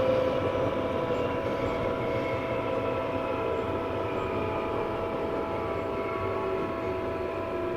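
Onboard running sound of a Tobu 9000 series armature-chopper electric train, car 9206: steady high whining tones over rail and running noise, with a lower motor tone gliding down in pitch as the train slows. At this time the car's motor sound was unlike the normal 9000 series, and the recordist suspects it was fitted with a different motor on test.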